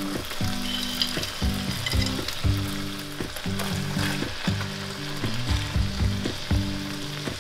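Ground-beef and beer sloppy-joe sauce simmering in a skillet with a steady sizzle, under background music with low held notes that change every half second or so.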